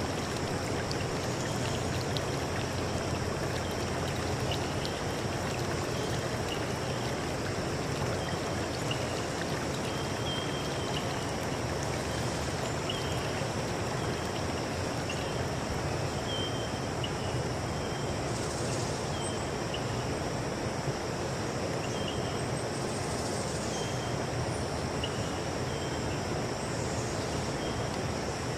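Steady rush of running stream water, with a continuous high insect drone and short chirps recurring every second or two.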